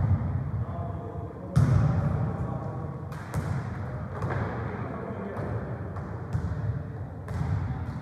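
A football being kicked and bouncing on a sports-hall floor during a game of football tennis: several sharp thuds with a hall echo after each, the loudest a little over one and a half seconds in.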